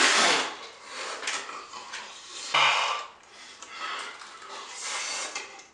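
A man sucking in and hissing out breath through clenched teeth in rough bursts, a loud one at the start and another about two and a half seconds in, with quieter breaths between. He is reacting to the burning sourness of extreme sour candy in his mouth.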